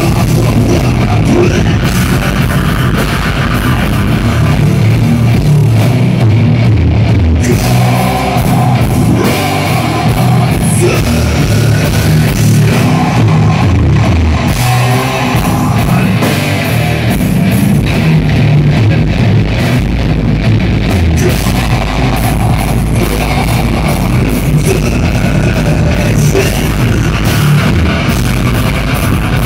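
A live heavy metal band playing, with electric guitars, bass guitar and drums and a singer's vocals over them, loud and without a break.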